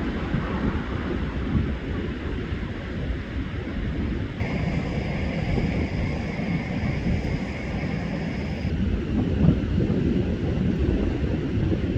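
Wind buffeting the microphone in a gusty low rumble, with ocean surf beneath. A steady high whine cuts in about four seconds in and cuts out abruptly about four seconds later.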